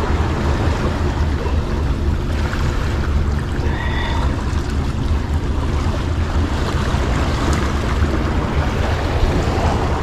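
Steady low wind rumble on the microphone, over waves washing against the rocks.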